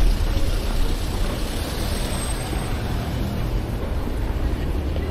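Busy city street traffic: a steady rumble of car engines and tyres.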